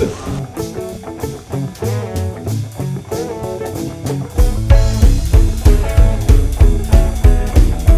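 Background music: guitar-led rock with bass, and a steady drum beat that kicks in about halfway through.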